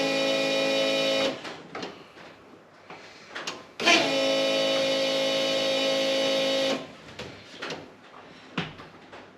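Electric fuel pump whining steadily, cutting off about a second in, then spinning up again with a quick rising whine a few seconds later and running about three seconds before stopping, with light clicks and knocks in between. The pump is being switched on to test it after it had stopped working.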